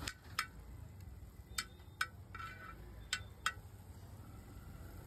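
Metal utensil clinking against a flat iron griddle: sharp ringing taps in pairs, three pairs about a second and a half apart, over a low steady rumble.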